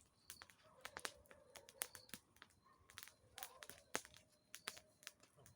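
Wood campfire crackling, with scattered sharp pops and snaps at irregular intervals.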